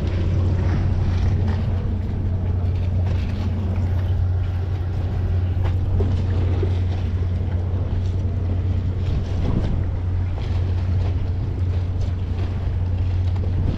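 Steady low hum of a boat engine with wind on the microphone, and a few small clicks of fishing tackle being handled.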